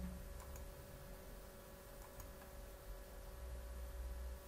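A few faint computer mouse clicks over a steady low electrical hum and room tone.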